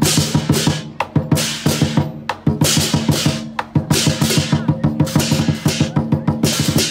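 Lion dance drum beaten with sticks in fast, driving strokes, with hand cymbals crashing in time roughly once a second: the drum-and-cymbal accompaniment of a Chinese lion dance.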